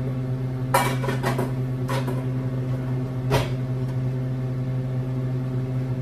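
A steady low electrical hum, with a few light clicks and knocks from a lidded pan being handled on a gas stovetop; the sharpest knock comes about three and a half seconds in.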